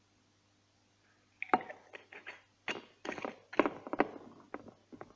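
Small glass whisky bottle handled on a table and its screw cap twisted shut: a string of sharp clicks and knocks, starting about a second and a half in.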